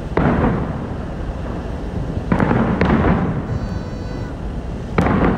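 Aerial firework shells bursting overhead: four booms, two of them close together in the middle, each trailing off in a rumbling echo.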